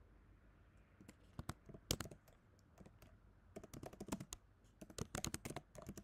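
Typing on a computer keyboard: keystrokes in three short bursts with pauses between.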